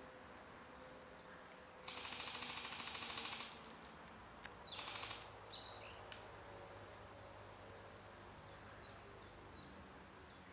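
Airsoft gun firing on full auto: a rapid burst of about a second and a half, then a shorter burst about five seconds in. Faint bird chirps follow.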